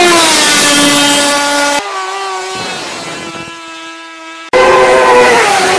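Loud racing engines at high revs in three quick cuts. First a Kawasaki 750-engined Thai long-tail boat speeds past, its pitch falling. Then, about two seconds in, comes a quieter racing motorcycle on a dirt track. Near the end another engine comes in loud.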